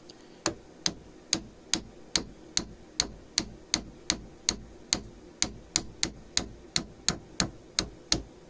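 Hammer tapping a steel pin punch on the cross pin through a Gew 98 rifle's front cap and stock, driving the pin out: about twenty sharp metal strikes at a steady two and a half per second.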